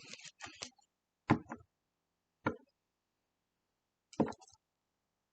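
Tarot cards being handled and set down on a table: a quick cluster of light taps and clicks, then three single soft knocks spaced out over the next few seconds.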